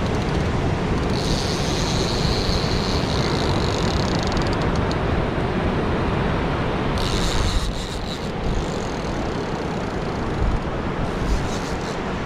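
Steady rumble of wind on the microphone over surf, with a fishing reel's drag buzzing as a hooked tuna pulls line off it, from about one to five seconds in and again briefly around seven to eight seconds.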